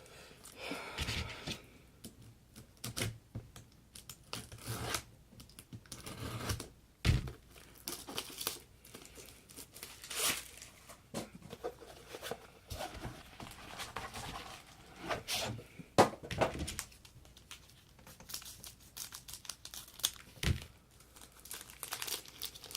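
Trading card packaging being torn open and crinkled, with irregular rustling and a few sharp taps as cards are handled.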